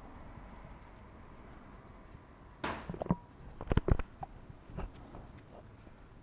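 Handling noise from gloved hands working thin electrical wires and heat-shrink tubing: a short rustle about two and a half seconds in, then a cluster of small clicks and taps over the next two seconds.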